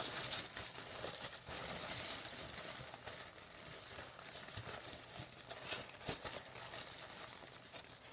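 Paper rustling with irregular light knocks and clicks as a cross-stitch chart booklet is handled.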